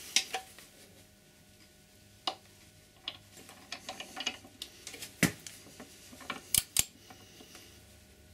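Ratcheting torque wrench tightening a motorcycle's rear axle nut toward 100 Nm: scattered sharp metallic clicks, with a close pair of louder ones in the second half.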